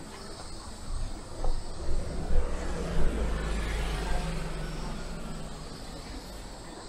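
A motor vehicle passing close by: its low rumble builds about a second in, peaks for a couple of seconds, then fades away over the last few seconds.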